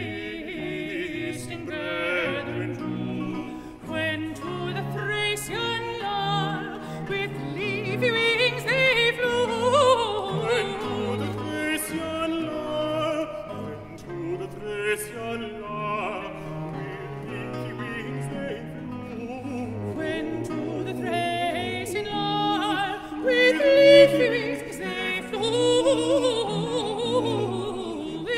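Countertenor and baritone singing a Baroque duet, accompanied by two recorders and a continuo of theorbo, cello and bass viol. The voices move in long lines over a walking bass that continues without a break.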